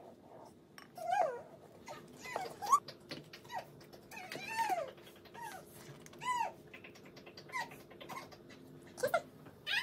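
An animal's short, high-pitched whines, a dozen or so in irregular succession, each rising and then falling in pitch, over a faint steady hum.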